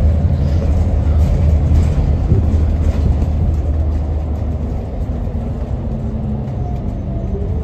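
New Flyer XN40 city bus's natural-gas engine running under way, heard from inside the cabin as a loud steady low drone over road noise, easing slightly about halfway through. The rider finds this bus's engine sound very strange, reminding him of an older NABI 40-LFW bus.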